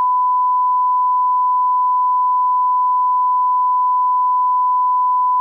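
Television colour-bar test tone: a single loud, steady, unbroken high-pitched beep.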